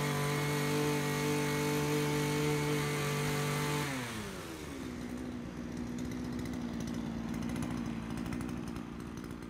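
Two-stroke engine of a Sumo pole pruner running at high revs, driving its hedge-trimmer attachment. About four seconds in the revs fall away and the engine settles into a steady, quieter idle.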